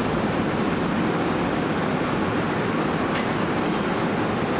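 Underground commuter train running away through the tunnel over the crossovers, a steady rumble and hiss of wheels on rail, with one sharp click about three seconds in.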